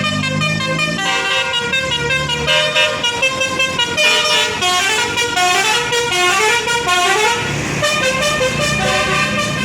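Bus telolet basuri horn, a multi-tone melodic bus horn, playing a quick tune of short stepped notes, with runs climbing and falling in the middle. A low steady hum sits beneath it at the start and again near the end.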